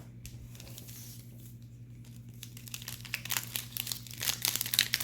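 Plastic foil wrapper of a Topps baseball card pack being torn open and crinkled by hand, a dense crackling that grows busier from about halfway through. A low steady hum runs underneath.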